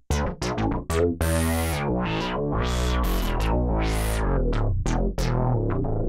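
Sequential Prophet-6 analog polysynth played from its keyboard: a quick run of short notes in the first second, then held chords that swell brighter and fall back three times, with a few short stabbed notes near the end.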